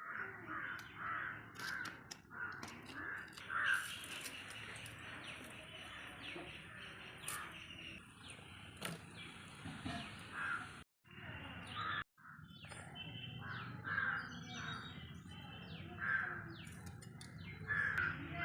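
Crows cawing again and again, with small birds chirping faintly in the background.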